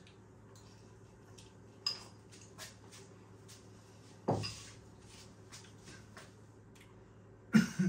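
Quiet eating sounds with a fork clinking on a ceramic noodle bowl: a sharp clink about two seconds in, then a louder knock about four seconds in as the bowl is set down on a wooden table top.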